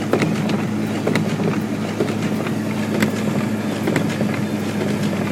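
Steady engine drone and road noise heard inside a vehicle's cab while it drives slowly, about 15 miles per hour.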